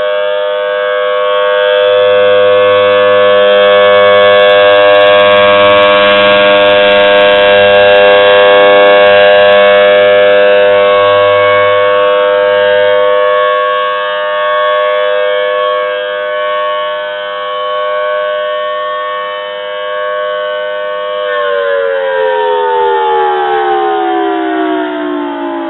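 Federal Signal Thunderbolt 1000T rotating outdoor warning siren sounding a loud steady tone that swells and fades in loudness, then about 21 seconds in it winds down, its pitch falling steadily.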